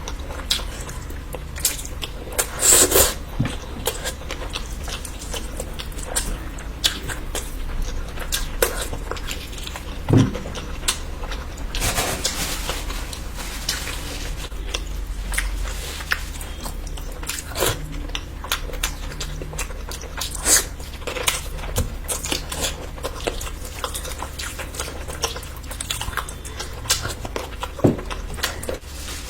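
Close-miked ASMR eating: a person chewing and biting into spicy curry and chicken, with wet mouth smacks and clicks throughout and a few louder bites scattered through.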